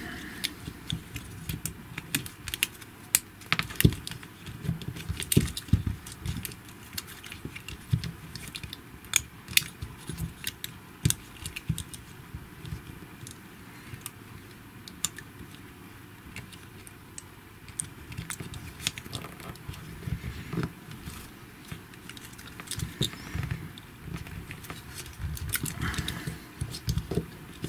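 Irregular small clicks and taps of plastic parts of a GHD Platinum hair straightener handled and pressed together by hand, as its housing is worked back into place around a new mains cable.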